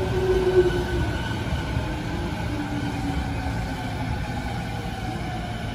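JR East 209 series electric multiple unit at the platform: its traction motors and inverter give several whining tones that slowly fall in pitch over a low rumble, the sound of the train slowing to a stop.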